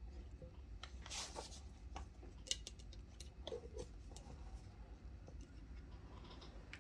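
Faint scattered clicks and brief light rustles of small objects being handled, over a low steady hum.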